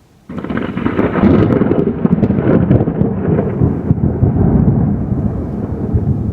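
Thunder from a lightning strike: a sudden loud crackling clap about a third of a second in, running on as a heavy rolling rumble that slowly eases.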